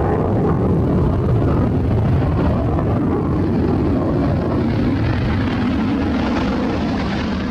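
Twin-engine fighter jet flying overhead: a loud, steady jet engine noise that grows harsher and more hissing in the second half, then cuts off suddenly.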